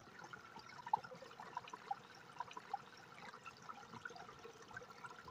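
Faint trickling water in a wetland seep, with scattered soft clicks and rustles of wet leaves being picked by hand.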